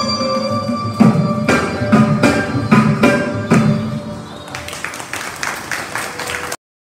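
Carnatic ensemble music in raga Revathi on electronic keyboards and violin, ending in a run of loud percussive strokes about two a second. Quicker, lighter strokes follow, and the music cuts off abruptly near the end.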